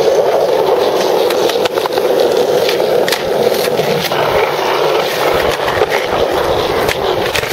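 Skateboard wheels rolling over a concrete sidewalk: a steady rumble, broken by a few sharp clicks.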